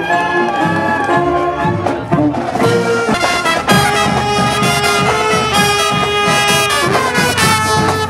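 Brass band playing, trumpets and trombones sounding long held notes, fuller and brighter from about three seconds in.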